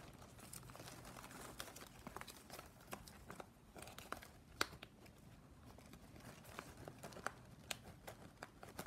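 Thin plastic strapping band crinkling and clicking faintly and irregularly as the strips are handled and worked into the weave, with one sharper click about four and a half seconds in.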